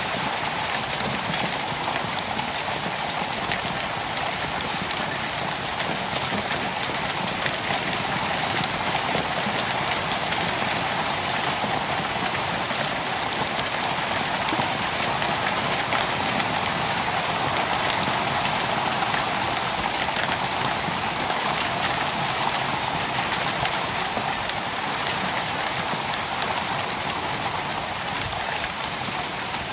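Heavy downpour: a steady hiss of rain falling on a lawn and trees, with sharper ticks of nearby drops through it.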